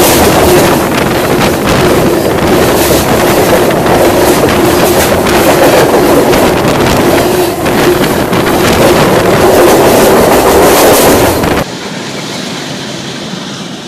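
Freight train cars rolling directly over the rails, heard from between the rails beneath them: loud, continuous rattling and rumbling of wheels and undercarriage with a steady hum. About 11.7 seconds in it cuts abruptly to the much quieter sound of the same train passing, heard from beside the track.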